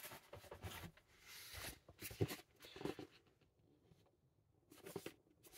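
Faint rustling and light knocks of cardboard figure boxes being handled in a shipping box, through the first few seconds and again briefly near the end.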